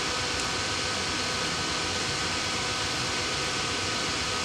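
Steady fan-like background hiss with a faint, steady high tone; no distinct event stands out.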